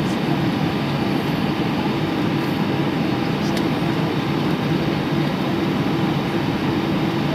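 Steady drone of an Airbus A319 cabin while the airliner taxis: jet engines at low power and cabin air, an even hum without changes.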